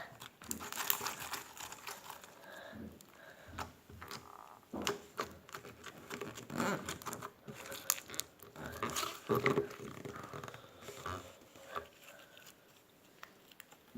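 Crunchy slime squeezed and kneaded by hand for ASMR, giving an irregular run of crackles and sharp pops.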